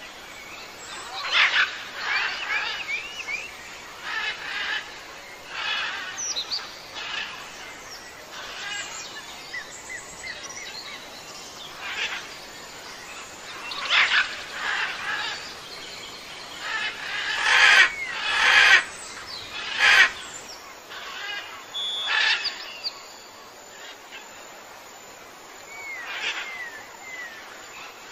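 Wild birds chirping and calling in a series of short calls, some with quick sliding notes; the loudest calls come about two-thirds of the way through.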